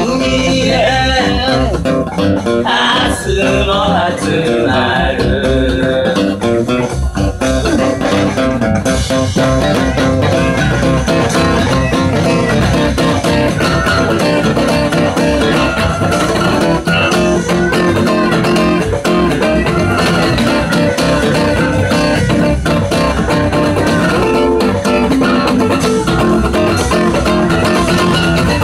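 Steel-string acoustic guitar strummed hard in a driving blues rhythm, with a man singing over the first few seconds.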